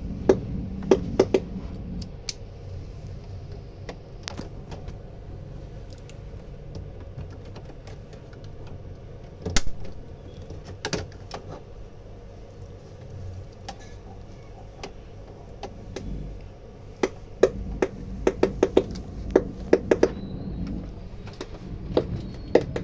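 Irregular sharp clicks and taps of hands and a screwdriver working on the plastic parts of an Epson inkjet printer around its print head carriage, as the head is taken out. The clicks come in clusters near the start, around the middle and toward the end, over a low steady hum.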